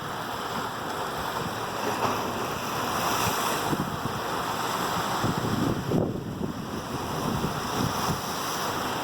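Rough sea with big waves surging and breaking, and wind buffeting the microphone. The wash swells for a few seconds, then drops away abruptly about two-thirds of the way through.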